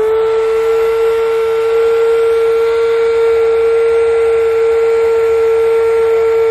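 Sea Eagle electric air pump running at a steady, loud, high-pitched hum as it pushes air through its hose into an inflatable catamaran pontoon.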